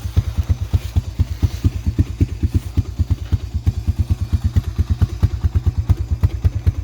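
Vehicle engine running at low speed, with an even, rapid low pulsing of about ten beats a second.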